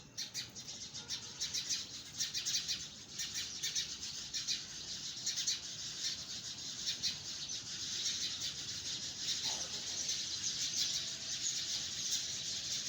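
Birds chirping in trees: a dense, continuous run of short, high chirps, many of them overlapping.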